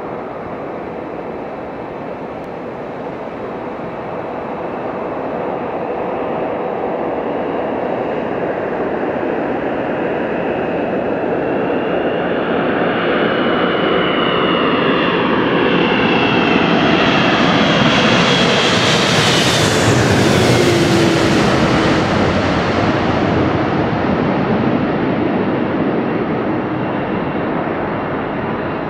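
Boeing 777-200 airliner on landing approach: the jet noise of its twin turbofan engines grows steadily louder as it comes in and passes close overhead about twenty seconds in. As it passes, the engine whine slides down in pitch, and the sound then eases as the plane moves away over the runway.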